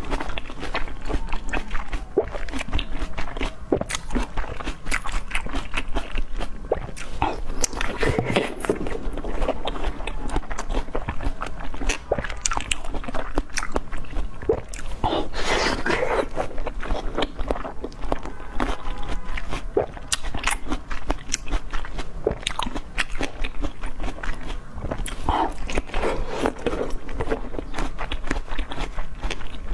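Close-miked eating sounds: steady biting and chewing of food, with frequent sharp crunches and wet mouth clicks.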